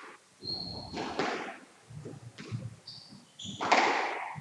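Squash rally: the ball is struck and smacks off the court walls with an echo, and players' shoes squeak on the court floor. The loudest hit comes about three and a half seconds in.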